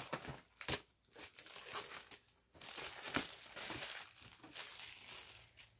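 Packaging crinkling and tearing as it is pulled off a boxed DVD collectible by hand, with a few sharp crackles.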